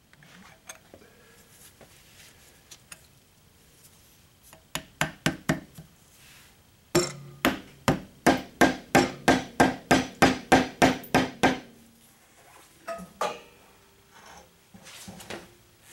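Hammer blows driving a new front-axle pivot bushing into the bore of a Ford 8N tractor's front axle. A few strikes come about five seconds in, then a fast, even run of about sixteen metal-on-metal blows at roughly three to four a second, then a few lighter knocks. The bushing will not go in by hammering alone.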